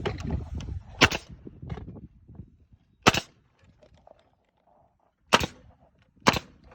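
Four sharp single bangs, unevenly spaced a second or two apart, typical of a framing nail gun firing nails into timber, with a few light knocks between them.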